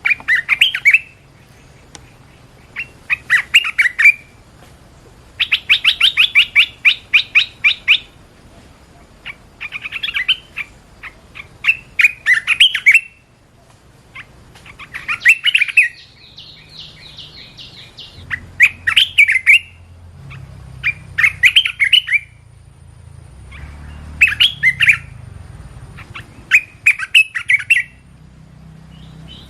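Red-whiskered bulbul singing: short, bright whistled phrases repeated every couple of seconds, with one longer rapid run of notes early on in the sequence.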